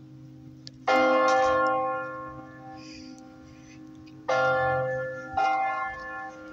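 Church tower bells ringing: three loud strokes, about a second in, then twice more near the end, each ringing on and slowly fading over a steady hum of bell tones that keeps sounding between strokes.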